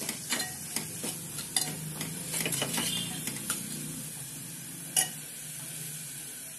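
Steel spoon scraping and clinking against an aluminium pot while stirring onion-tomato masala frying in oil, over a low sizzle. The stirring stops about four seconds in, and there is one louder clink about a second later.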